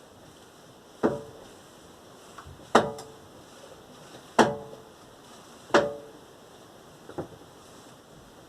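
Five sharp clunks about a second and a half apart, each with a brief ring, the last one fainter: the knock from under the bonnet of a VAZ 21099 as the steering is turned, which the owner suspects comes from a worn-out steering rack.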